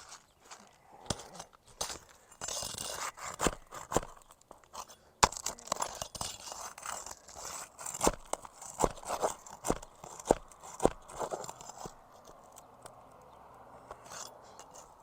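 Old asphalt roof shingles crackling and scraping as they are pried up and their staples worked out by hand, with many sharp clicks and knocks. The sounds thin out near the end.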